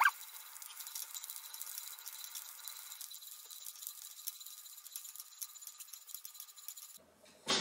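Silkworm pupae frying in a pan: faint sizzling with fine crackles, and a short squeak of the spatula on the pan at the start. The sizzling stops near the end and a sudden knock follows.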